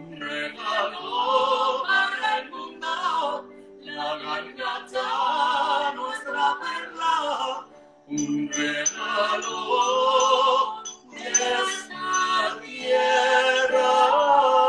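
A man and a woman singing a song together over instrumental accompaniment of held chords, in sung phrases a few seconds long with short breaks between them.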